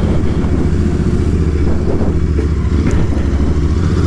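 Royal Enfield Interceptor 650's parallel-twin engine running steadily at low speed as the motorcycle is ridden slowly.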